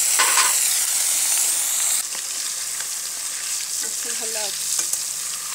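Turmeric-and-salt-coated fish pieces frying in hot oil in a wok, a steady sizzle that drops a little in level about two seconds in.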